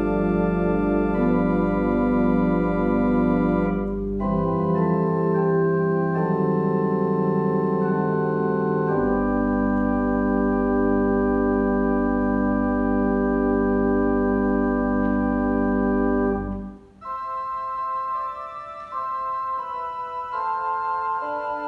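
Organ playing slow, sustained chords over a deep bass line. About 17 seconds in, the bass drops out and the music goes on in a higher, lighter register.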